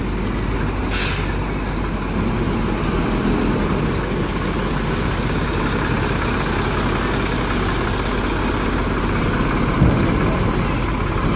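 Large bus diesel engine idling steadily, with a short hiss of air about a second in.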